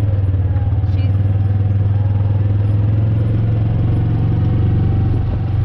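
A vehicle engine running steadily, an even low hum that does not change in pitch.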